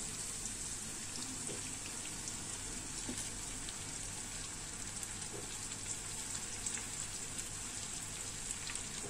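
Onion and spice masala sizzling gently in mustard oil in a steel pan, with a soft scattered patter as cut okra pieces tumble in on top.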